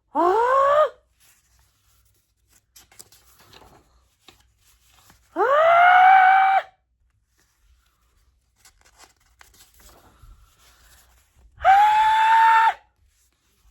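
A woman's voice drawing out three long 'ahh' sounds, each one rising and pitched higher than the last: the wind-up to a dramatised sneeze. Faint rustling comes in the pauses between them.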